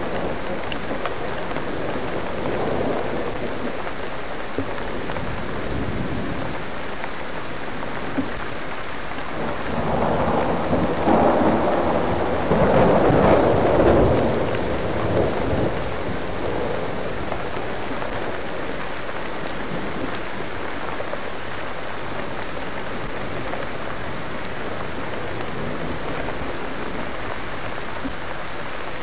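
Steady heavy rain falling, with a roll of thunder swelling about ten seconds in and dying away a few seconds later.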